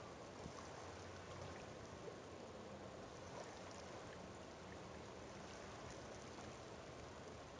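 Faint, steady outdoor ambience of water at a shoreline: an even hiss with scattered small ticks.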